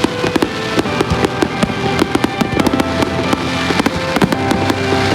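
Fireworks going off in a rapid string of sharp bangs and pops, with music playing underneath.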